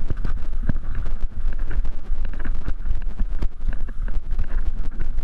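Wind buffeting the microphone of a camera carried by a running runner, a heavy low rumble, with the knocks of footfalls and jostling gear a few times a second.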